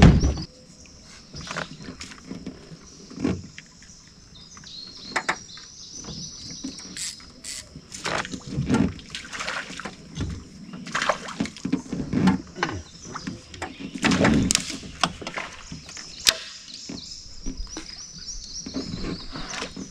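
Scattered knocks, taps and rustles of fishing tackle being handled in a metal jon boat, loudest about halfway through and again a few seconds later, over a steady high-pitched drone from the swamp.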